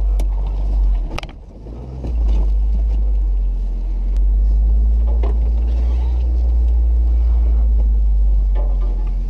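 Jeep Wrangler JK engine running at crawling speed with a steady low rumble; it sags briefly about a second in, then picks back up and holds. A few sharp clicks sound over it.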